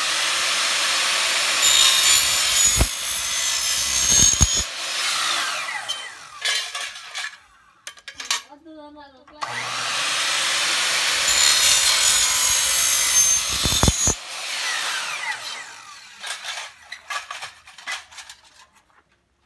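Handheld electric power saw making two cuts, each a few seconds long, with a high whine over the cutting noise and the motor winding down after each one. Scattered knocks and clicks follow near the end.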